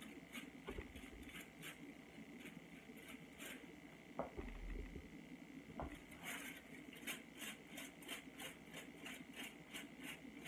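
Tint brush stroking lightener onto a section of hair laid on foil: soft, scratchy brush strokes, scattered at first, then a steady run of about three a second from about six seconds in. A few dull handling knocks in the first half.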